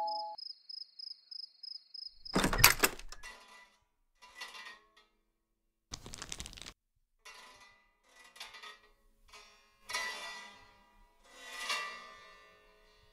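Animation sound effects. A two-tone doorbell chime dies away, and a faint pulsing high electronic tone runs until a loud thunk about two and a half seconds in. A short burst of glitchy static follows, then a scattering of metallic clinks and ringing, twangy hits, the two loudest near the end.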